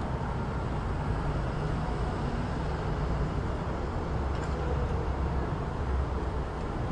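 City street ambience: a steady low rumble of traffic with a general hum of urban noise and no distinct separate events.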